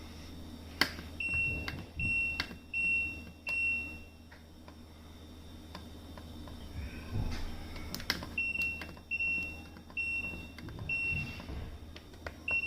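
Dishwasher control panel beeping as its buttons are pressed to select a wash cycle. Short, high single-tone beeps come in a run of four in the first few seconds, another run of four later, and one more near the end, with sharp clicks of the button presses among them.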